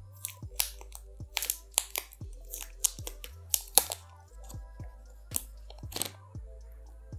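Thin protective plastic film being picked at and peeled off the back of a smartphone, crinkling in a quick irregular string of sharp crackles.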